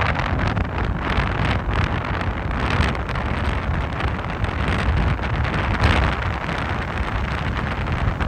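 Strong gusting wind buffeting an iPhone 13 Pro's microphone, a heavy low rumble that never lets up, over the rushing wash of heavy surf that swells and eases.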